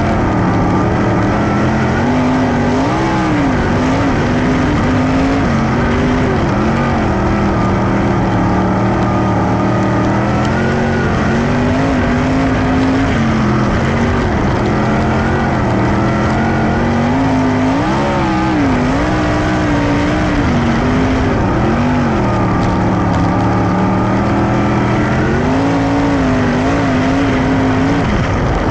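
Dirt-track race cars running laps together, a pack of engines at full throttle whose pitch rises and falls over and over as the cars go down the straights and through the turns.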